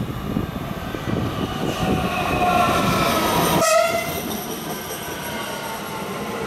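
DB Regio Talent 2 class 442 electric multiple unit passing close by, its horn sounding and dropping sharply in pitch as the cab goes past, about three and a half seconds in. The wheels rumble on the rails as it approaches, easing once the front has passed.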